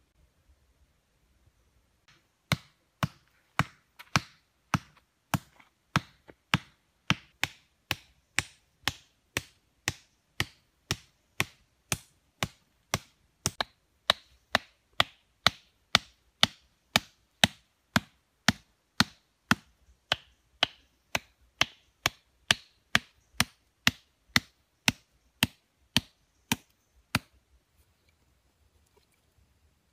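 Machete blows on wooden stakes, a steady run of sharp knocks about two a second that starts a couple of seconds in and stops near the end.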